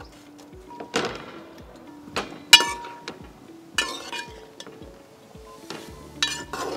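A metal spoon clinking against a steel cooking pot several times as vegetables are stirred, with sharp ringing strikes. Background music with a steady beat plays throughout.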